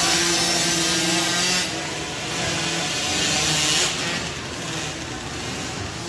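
Several small 50cc dirt bike engines buzzing and revving as the bikes race around an indoor arena track. The sound is loud at first, then drops noticeably about a second and a half in and again about four seconds in.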